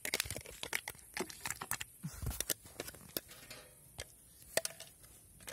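Light, irregular metallic clicks and scrapes as wet cat food is put into a wire-mesh cat trap with a small trowel.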